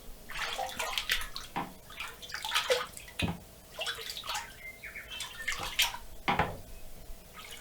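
Water splashing and dripping as a freshly dyed anodized aluminium part is dunked and swished in a tank of distilled water to rinse off the dye. Two dull knocks stand out, about three and six seconds in.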